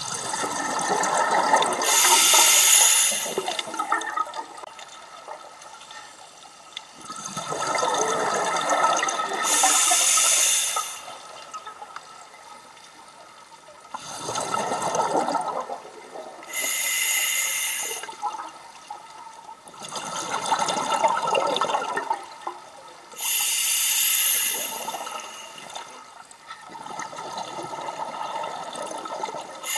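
Scuba diver breathing through a regulator underwater: the bubbly rush of an exhalation followed by the hiss of an inhalation, repeating about every six to seven seconds, four breaths in all.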